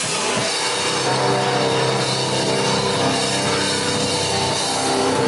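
Live metalcore band playing loud distorted guitars with drums, the guitars holding long chords.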